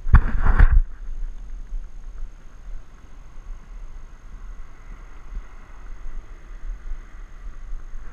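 Wind buffeting a body-worn action camera's microphone as a low, uneven rumble, with one loud rough gust in the first second.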